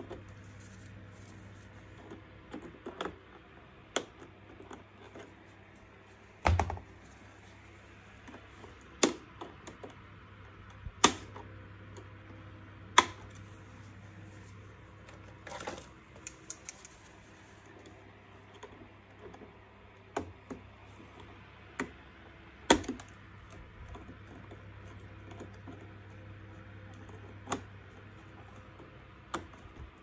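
Irregular sharp clicks and knocks of a vacuum cleaner's plastic housing and wire connectors being handled, about a dozen scattered through with a few louder ones, over a faint steady low hum.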